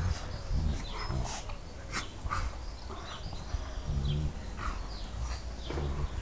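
A large dog making small vocal sounds as it rolls about on its back in the grass.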